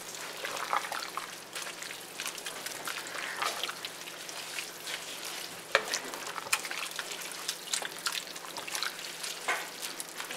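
Wooden spoon stirring a thick, chunky soup in an enameled cast-iron Dutch oven: wet stirring with scattered sharp clicks of the spoon against the pot, one of the strongest about six seconds in, over a steady hiss.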